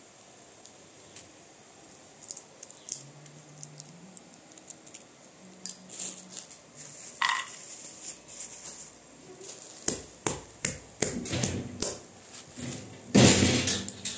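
Walnut shells being broken apart and picked over by hand on a plastic bag: scattered dry clicks and crackles of shell and crinkling plastic, growing busier towards the end, with a louder burst of crunching a little over a second before it ends.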